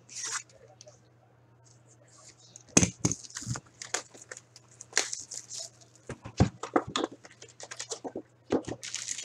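Plastic shrink-wrap being pulled off a cardboard trading-card box, crinkling, with taps and knocks as the box is handled and opened. There is a brief rustle at the start, then from about three seconds in a steady run of crinkles and knocks.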